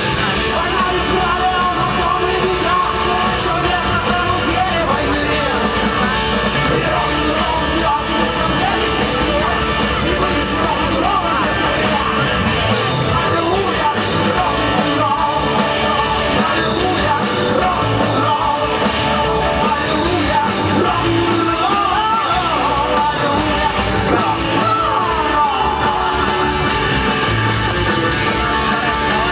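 Rock song with guitar and a singing voice, played loud and steady throughout.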